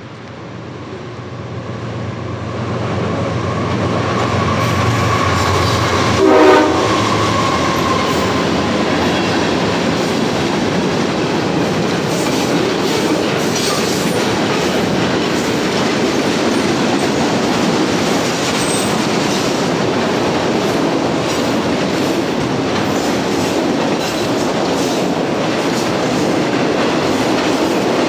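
Freight train led by GE ES44AC and AC4400CW diesel locomotives going by: the engines' low drone builds over the first few seconds, a short horn blast sounds about six seconds in, then the freight cars roll past with a steady clatter of wheels on rail.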